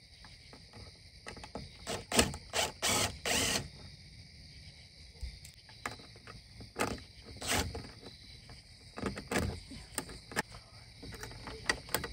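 Cordless drill/driver with a Phillips bit running in a few short bursts about two to three and a half seconds in, driving a screw, among scattered knocks and clicks of tools being handled. Insects trill steadily behind.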